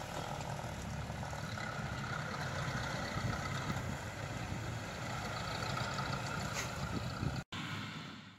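Tractor diesel engines running steadily: a low hum. The sound drops out abruptly for an instant near the end.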